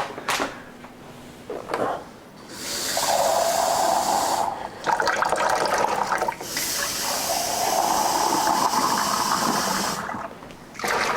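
Water running and splashing into a container in two spells, a short one of about two seconds and a longer one of about five, with a brief break between them, as a coffee-machine part is rinsed clean.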